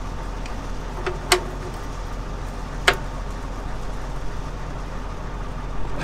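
Engine of a 1975 John Deere combine running steadily, with two sharp clicks about a second and a half apart.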